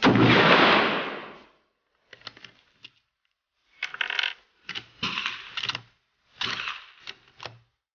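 .243 Winchester rifle firing one shot, a sharp report that dies away over about a second and a half. Then four short runs of metallic clicking and rattling as the action is cycled to eject the spent case and chamber the next round.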